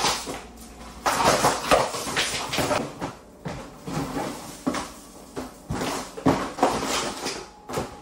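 Peel-and-stick luxury vinyl floor planks being pulled up by hand: irregular bursts of ripping and scraping, with a few sharp knocks.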